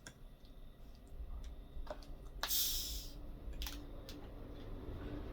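A few light clicks of handling, then a short fizzing hiss about two and a half seconds in: a carbonated Coke being opened and its gas escaping.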